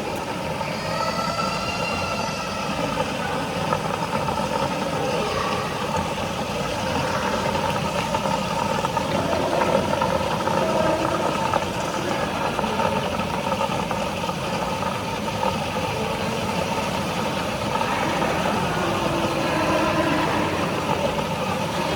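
Steady rumble and hiss of a running vehicle.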